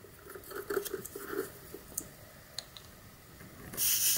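Faint handling rustle and a few light clicks, then near the end a short, loud hiss of air as the compressor hose's chuck is pressed onto the tyre's valve stem.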